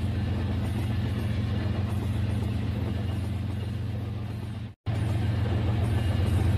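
Rail King toy train running on its plastic track: a steady motor hum with wheel rattle. It breaks off for an instant about three-quarters of the way through, then carries on a little louder.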